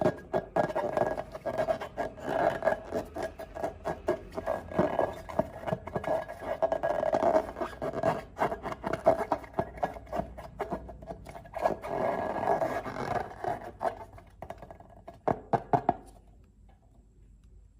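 Slime being worked by hand, sticky and wet, with a dense run of irregular squelches and clicks that stops about sixteen seconds in.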